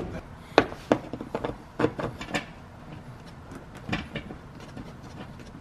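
Several sharp wooden knocks and taps, irregularly spaced and the loudest about half a second in, as a plywood floor sheet is pressed and shifted by hand on a van's cargo floor, over a low steady hum.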